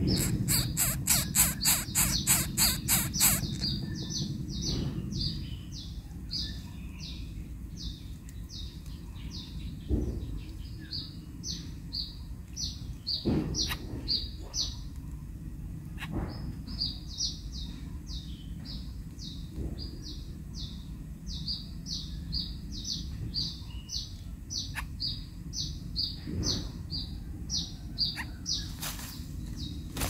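A steady run of short, high chirps, about two a second, over a low rumble, with a few soft knocks and rustles. It opens with a fast series of sharp clicks, about four a second, that stops after about three seconds.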